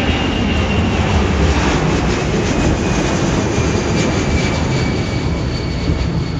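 Boeing C-17 Globemaster III's four turbofan jet engines running loud as it flies a display pass: a steady, heavy jet rumble with a faint high whine over it.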